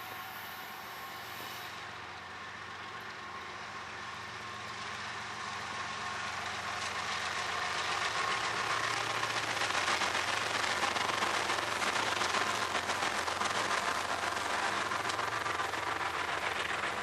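CSX freight train passing close by: its diesel locomotives approach and go by, growing louder over the first several seconds, then double-stack container well cars roll past with a steady rumble and clatter of wheels on the rails.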